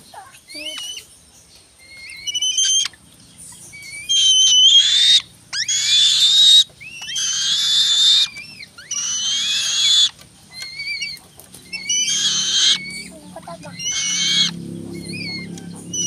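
Juvenile black-winged kite calling: repeated short whistled chirps, and about six loud, harsh, wheezy screams of roughly a second each, mostly between about four and thirteen seconds in.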